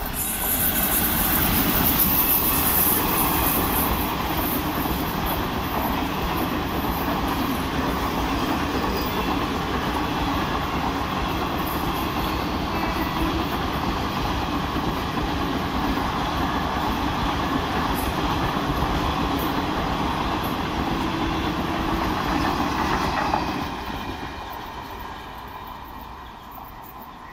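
Express passenger train hauled by a WAP-4 electric locomotive passing at speed without stopping: a loud, steady rush of wheels on rails as the locomotive and coaches go by. The sound drops sharply near the end as the last coach passes, then fades.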